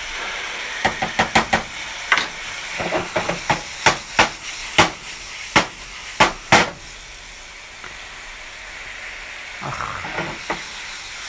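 Sliced steak sizzling and hissing in a nonstick frying pan as it cooks in the liquid it has released. During the first seven seconds there is a run of sharp clicks and knocks as the meat is stirred with a wooden spoon and the pan is shaken; after that only the steady sizzle is left.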